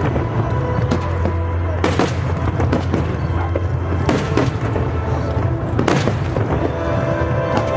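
Fireworks bursting overhead, a few sharp bangs about every two seconds, over music playing with a steady low drone.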